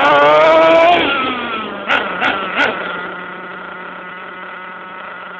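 Thunder Tiger ST-1 RC stadium truck's motor, heard from a camera on board, revving up, then easing off. Three short knocks follow as the truck runs over rough ground, then the motor settles to a steady low hum.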